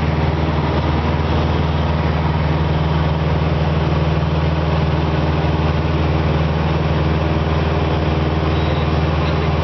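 Cessna 172RG Cutlass II's four-cylinder Lycoming O-360 engine and propeller running steadily in flight, a constant low engine hum heard from inside the cabin.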